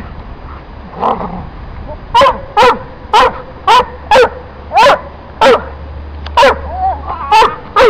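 A dog barking over and over in short barks, about two a second, starting about two seconds in.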